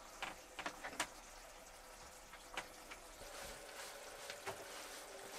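Faint sizzling of food frying in a pan, with a cluster of sharp clicks and taps about a second in and a few more later.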